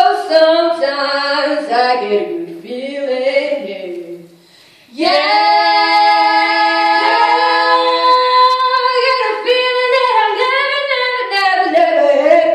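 Female a cappella group singing in harmony, several voices moving together. They break off briefly about four seconds in, then come back on a long held chord before moving on again.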